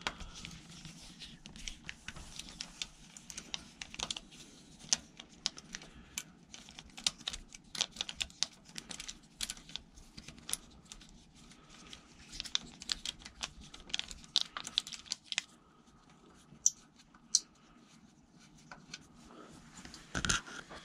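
Allen key turning small screws out of a bicycle frame: many quick, irregular light clicks and taps of the key in the bolt heads and of fingers handling the parts, thinning out over the last few seconds.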